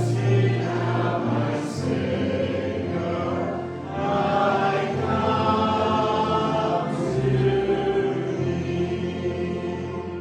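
A congregation singing a slow hymn together.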